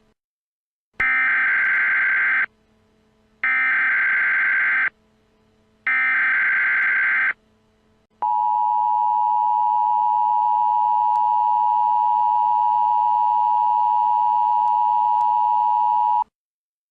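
Emergency Alert System tones: three bursts of the SAME digital header, about a second and a half each with short gaps between, followed by the two-tone attention signal held steady for about eight seconds and cutting off suddenly.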